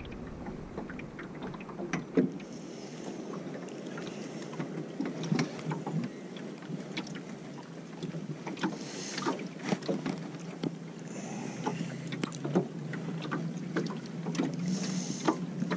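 Small waves lapping against a small fishing boat's hull, with scattered light knocks and splashes. A low steady hum comes in about halfway through.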